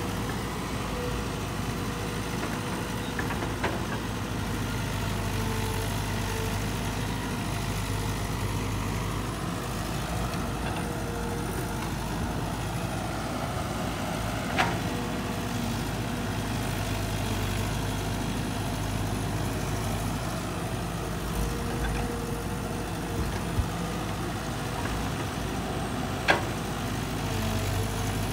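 Caterpillar 312 hydraulic excavator at work: its diesel engine runs steadily while the boom and bucket dig. A few short, sharp knocks come through, the loudest about two-thirds of the way in and another near the end.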